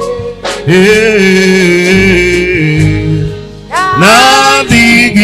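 Gospel praise song: long sung phrases with instrumental accompaniment. The singing dips for about a second midway while the low accompaniment carries on.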